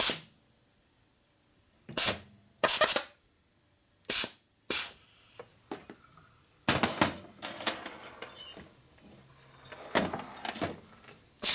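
Short, sharp metallic clicks and clanks at irregular intervals from a bench-mounted valve spring compressor and a Harley-Davidson Milwaukee-Eight cylinder head being worked while the valve springs and keepers are assembled, busiest in the second half.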